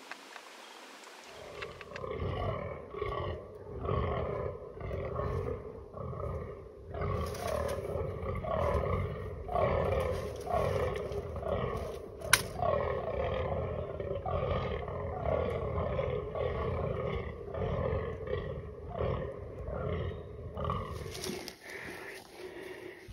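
Fallow buck groaning in the rut: a long run of short, deep calls, about two a second, each dropping in pitch. A single sharp click comes about twelve seconds in.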